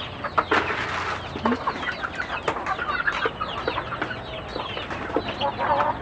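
Hens clucking, with chicks keeping up a stream of short, high, falling peeps, and a few sharp knocks.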